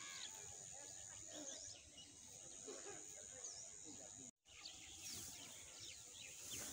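Faint rural outdoor ambience with many small birds chirping over a steady high hiss. The sound drops out completely for a split second about four seconds in.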